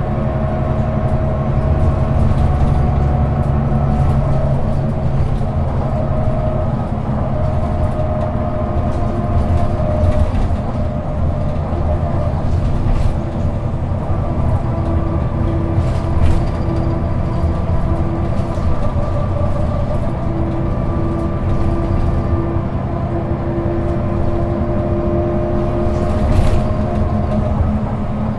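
Solaris Urbino II 18 articulated bus's diesel engine idling steadily, heard from inside the passenger cabin. An extra steady tone joins about halfway and stops near the end, and two short knocks come late on.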